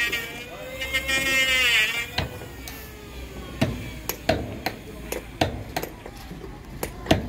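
Irregular sharp knocks like hammer blows, a few a second, starting about two seconds in.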